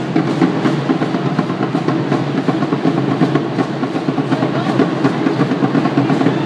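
Fast, busy drumming with many quick strokes and no break.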